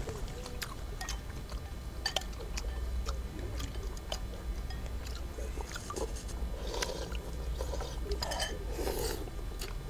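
Eating noodle soup: chopsticks and spoons clicking against bowls in scattered short clicks, with a few brief liquid slurping sounds.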